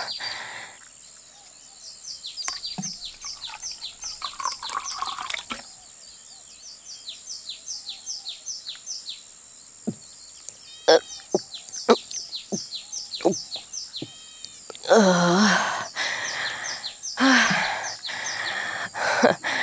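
Birds chirping in runs of quick, falling chirps over a steady high-pitched tone. A few short clicks come in the middle, and two brief vocal sounds near the end.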